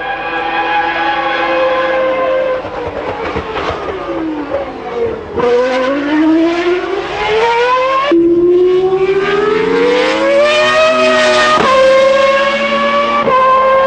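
Williams FW19's 3.0-litre Renault V10 Formula 1 engine at high revs. The note falls as the car slows, then climbs through the gears, with sudden drops in pitch at each upshift, one about halfway through and another near the end.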